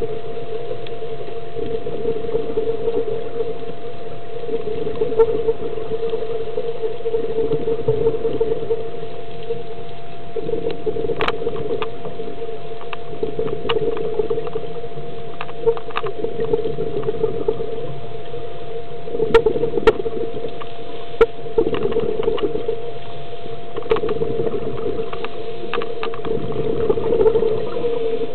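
Muffled underwater ambience: a steady drone with a constant thin hum over it, broken by scattered sharp clicks that come more often in the second half.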